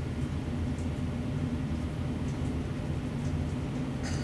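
Steady low hum with a faint hiss from the room's background, with a faint brief rustle near the end. No shot is fired.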